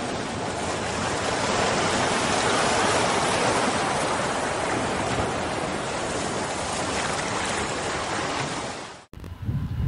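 Intro sound effect of steady, even rushing noise, swelling slightly over the first few seconds and fading out about nine seconds in.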